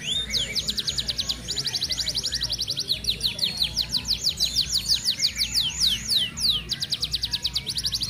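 Yellow F1 canary singing fast, tight rolls: long trains of quick, high, downward-sweeping notes, about ten a second, with the tempo and note shape changing from phrase to phrase.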